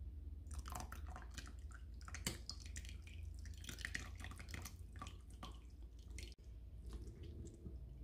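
Cooked apple pieces and their juice poured from a stainless pan into a mesh strainer, with the liquid splashing and dripping through into a glass measuring cup and soft fruit squishing, plus a single sharp tap a little over two seconds in.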